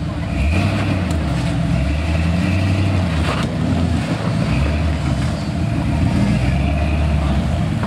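Off-road vehicle engine running steadily at low revs during slow rock crawling.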